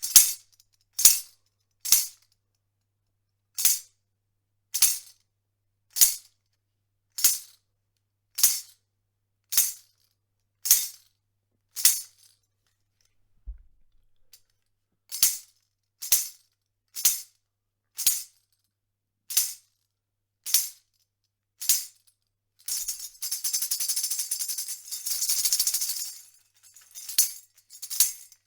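Tambourine struck in single hits about once a second, each a bright jingle of its metal zils that dies away quickly, with a pause of a few seconds midway. Near the end it is shaken in a continuous jingling roll for about four seconds before single hits resume.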